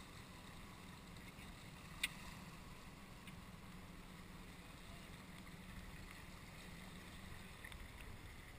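Faint, steady low hum of a small boat under way on calm water, with a single sharp click about two seconds in.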